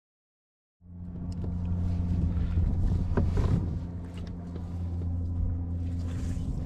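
Motor running with a steady low hum, starting suddenly about a second in, with a few small clicks and knocks over it.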